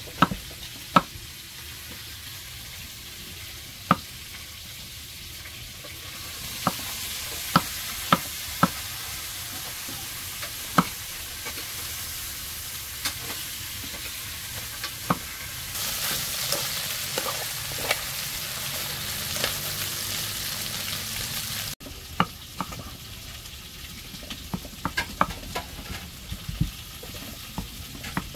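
Pieces of shank and ribs sizzling as they cook in a pot, a steady frying hiss with sharp clicks now and then. The hiss grows louder about six seconds in and again around sixteen seconds, then drops off suddenly around twenty-two seconds.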